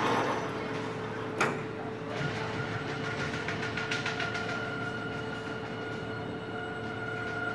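CNC gantry drive motors moving a sewing clamp frame across the table: a steady motor whine with several held tones, a higher one joining about two seconds in, and a single sharp click about a second and a half in.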